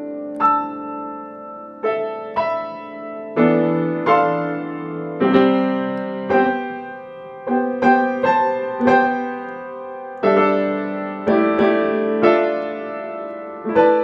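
Solo grand piano playing slow chords, each struck and left to ring and fade before the next, about one a second.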